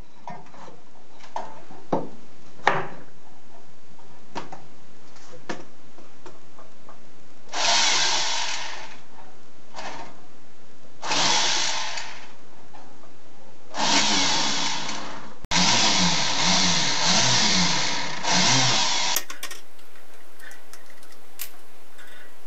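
Flexible-shaft rotary tool running in short bursts against a brass tube: about four runs of a second or so each, the last one longer with its speed rising and falling. A few light clicks come before the first run.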